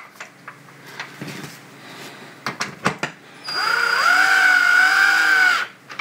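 Cordless drill driving a screw into a plastic charger housing: its motor whine starts a little after halfway, rises, runs steady for about two seconds, then stops. Before it, light clicks and knocks of handling the plastic case.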